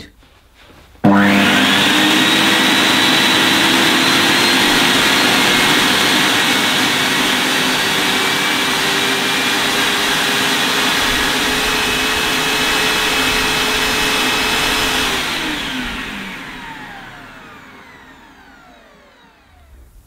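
Vax HF1400 upright vacuum cleaner's 1400-watt suction motor switching on abruptly about a second in and running steadily with a whine, its electronic speed dial turned up. Near the end it is switched off and runs down over several seconds, its pitch falling away.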